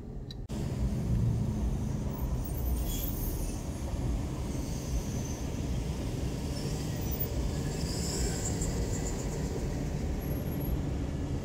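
Steady low rumble of slow freeway traffic heard from inside a car, with a city bus running close alongside.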